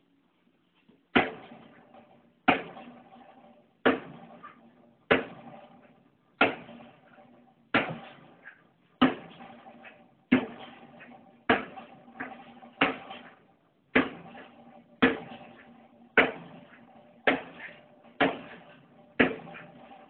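A Blackheart Persian knife stabbing again and again into the steel shell of a water heater, roughly one stab a second starting about a second in. Each stab is a sharp metallic clank, and the tank rings briefly after it.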